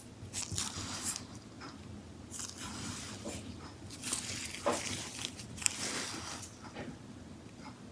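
Irregular small clicks and short scrapes of hands working on the open laptop's internals while taking out the M.2 NVMe SSD.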